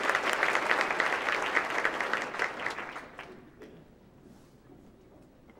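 Audience applauding, dying away about three seconds in to a few scattered claps.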